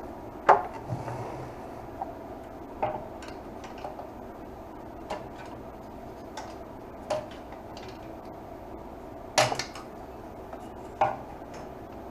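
Scattered clinks and knocks of hand tools and metal parts being handled while a motorcycle radiator is worked loose. The loudest knocks come about half a second in and twice near the end, over a steady faint hum.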